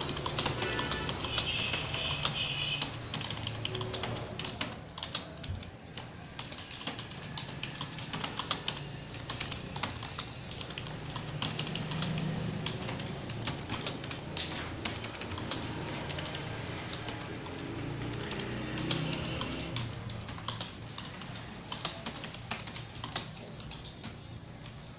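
Continuous typing on a computer keyboard: a steady stream of key clicks at several keystrokes a second, a home-row typing drill at about 40 words per minute.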